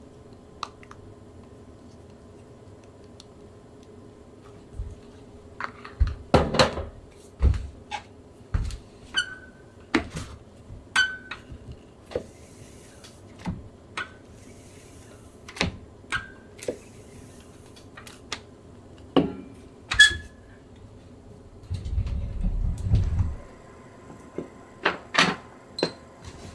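Silkscreen printing work: a string of scattered knocks, clicks and taps as tools and equipment are handled, some with a short squeak. A low rumble follows about twenty-two seconds in.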